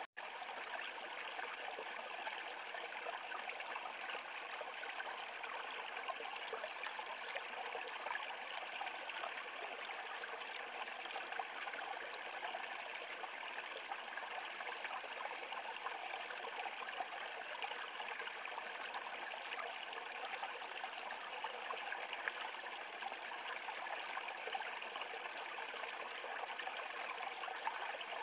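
Small stream running over a low rock step into a shallow pool, its edges crusted with ice: a steady rush of splashing and trickling water.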